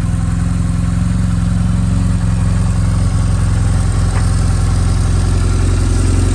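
BMW R1100S's flat-twin boxer engine idling steadily.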